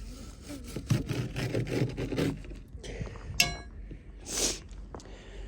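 A run of quick rough scraping strokes, then a sharp click about three and a half seconds in and a short hiss about a second later.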